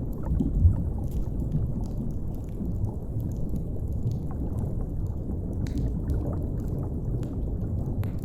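Underwater ambience: a steady low rumble of deep water, with faint scattered crackles of a wood fire and one louder low bump about half a second in.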